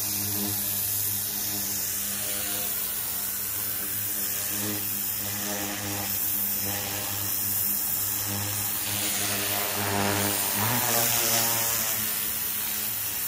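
Promac M36 three-phase electric pressure washer running, a steady motor and pump hum under the hiss of its rotary-nozzle jet blasting moss off concrete. The spray hiss grows louder about ten seconds in.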